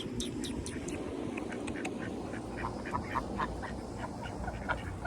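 Ducks quacking: a quick string of short calls from several birds, coming thicker from about halfway through.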